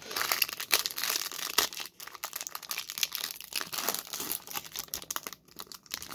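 Foil Pokémon booster pack wrapper crinkling and crackling as it is torn open and worked by hand, with dense irregular crackles throughout.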